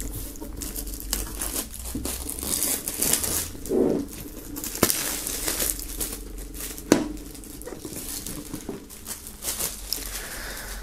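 Clear plastic shrink-wrap film crinkling and tearing as it is peeled off a metal box, with a couple of sharp clicks about five and seven seconds in.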